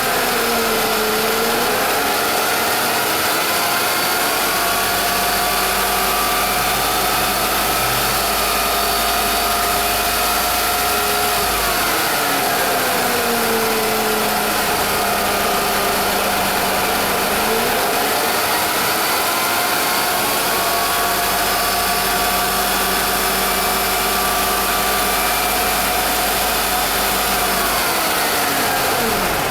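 Car engine running with a whine from the power steering pump. The whine holds steady, and its pitch sags and recovers a few times: at the start, around 12 and 17 seconds, and at the end. This abnormal pump noise is the fault being recorded.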